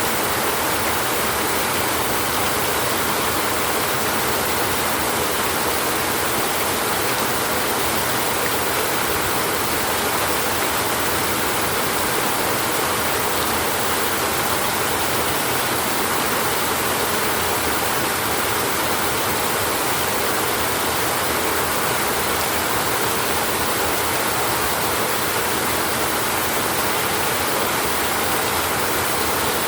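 Heavy rain drumming steadily on a tin roof, an even, unbroken hiss with no thunder.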